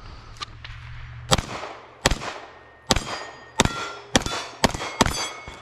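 A rapid string of about seven or eight gunshots, a little under a second apart at first and quicker toward the end, fired at steel targets. Several shots are followed by the clang of a struck steel plate ringing.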